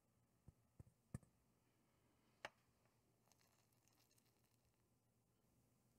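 Near silence with four short faint clicks in the first two and a half seconds.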